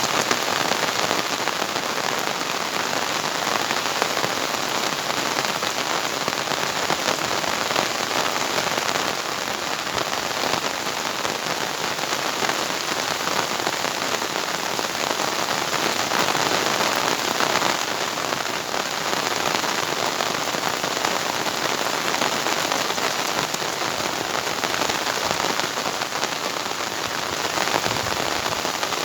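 Heavy rain pouring down steadily as a dense, even hiss.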